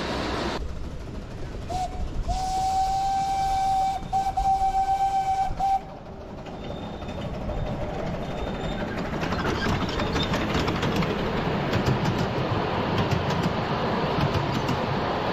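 A 7¼-inch gauge miniature locomotive sounds its whistle: a short toot, a long steady blast, then a run of shorter toots. The train then rolls closer and passes, its carriage wheels clicking over the rail joints as it gets louder.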